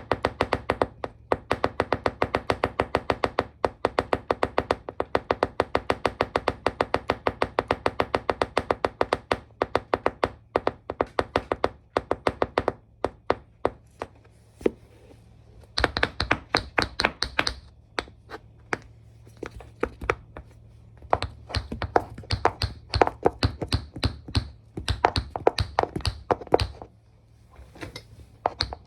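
Tap shoes' metal taps striking a hard floor in quick runs of sharp clicks, about five a second for the first dozen seconds. After that the clicks come in shorter bursts with brief pauses between them.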